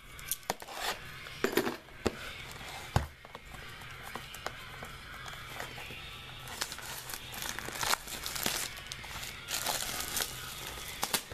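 Clear plastic shrink wrap crinkling and tearing as it is pulled off a sealed cardboard box of baseball cards, with many sharp crackles throughout.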